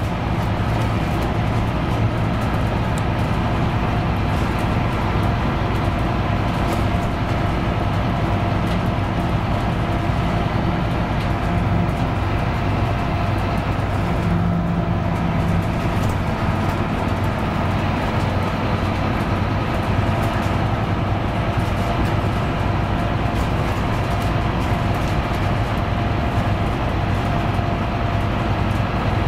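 Scania K310UB city bus under way, heard from inside the cabin: the rear-mounted diesel engine and driveline hum steadily over road noise. The engine note shifts briefly about halfway through.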